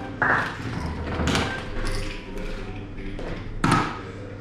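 Soft-tip darts striking an electronic dartboard: two sharp thuds about two and a half seconds apart, with a duller thump just before the first.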